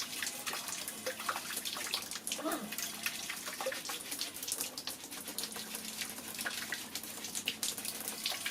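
Water running from a tap and splashing steadily, with many small irregular splashes.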